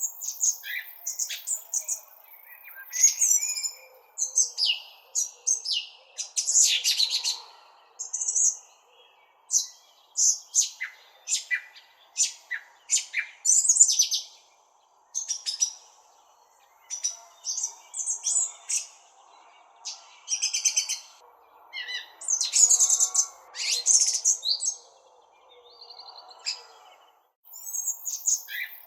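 Birds chirping: quick runs of short, high calls, with a couple of brief lulls, over a faint steady background.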